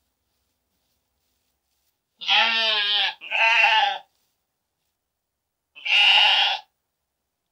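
Sheep bleating three times: two bleats back to back about two seconds in, then a third near the end, each with a quavering pitch.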